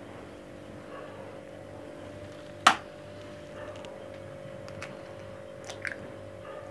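A single sharp knock about two and a half seconds in, an egg rapped on the rim of a glass bowl to crack it, then a few faint clicks near the end as the shell is pulled apart over the bowl. A low steady hum lies underneath.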